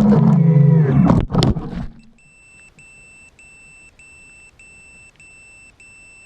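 FPV quadcopter's motors and propellers whine, wavering in pitch, then cut out with a crash of sharp knocks about a second in. A high electronic beeper follows, a little under two beeps a second, typical of a quad's buzzer sounding after a crash.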